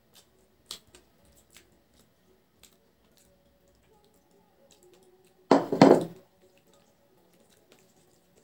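Tableware sounds: a few light clicks of a ceramic bowl being handled, soft pouring of curry gravy onto rice, then a louder clatter a little after halfway as the bowl is set down on the table.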